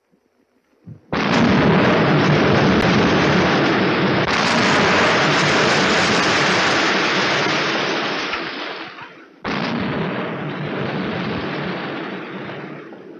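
Quarry rock blast: a sudden explosion about a second in, followed by a long, loud rumble of rock and rubble coming down. A second sudden blast follows near the end and fades away.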